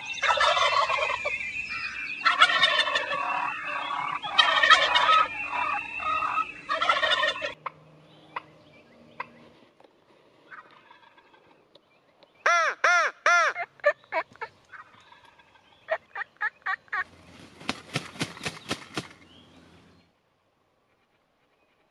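Wild turkeys gobbling, loud, rattling gobbles in four swells one after another, then quieter runs of short quick yelping notes later on.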